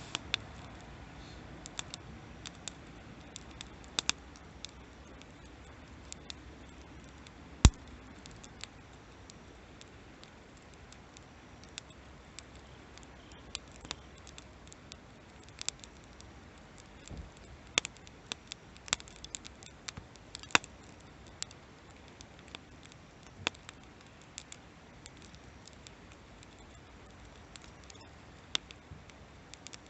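Wood campfire crackling: sharp, irregular pops and snaps over a low steady hiss, the loudest pop about eight seconds in.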